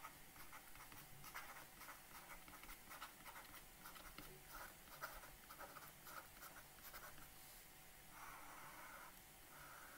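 Faint scratching and tapping of a stylus on a tablet screen as words are handwritten in short strokes, with a longer stroke about eight seconds in.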